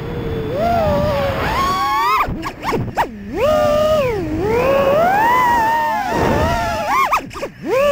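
FPV racing quadcopter's brushless motors and propellers whining, the pitch rising and falling quickly with the throttle. The whine drops away briefly twice, between about two and three seconds in and again near the end, as the throttle is chopped.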